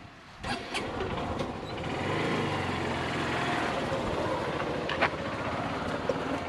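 An engine running steadily, building from about two seconds in, with a few sharp clicks.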